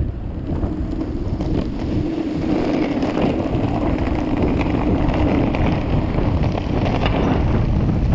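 Wind buffeting the microphone while riding an electric skateboard, over a steady low rumble of the board rolling on the road.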